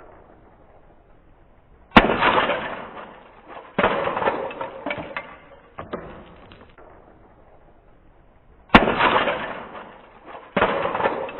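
Airsoft grenade going off twice, about seven seconds apart: each time a sharp bang followed by a noisy spray that fades over a few seconds, with a second surge about two seconds after the bang.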